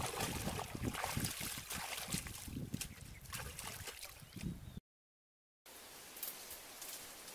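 Water sloshing and splashing as a person wades through a shallow muddy pond, in quick irregular bursts. It cuts off suddenly about five seconds in. After a short silence comes a fainter, steady background with light rustling.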